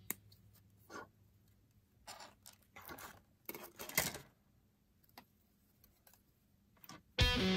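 Handling a plastic model kit runner: a few sharp clicks of hobby side cutters snipping parts from the plastic sprue, mixed with brief rattles of the runner being moved and set down. Guitar music comes in loud near the end.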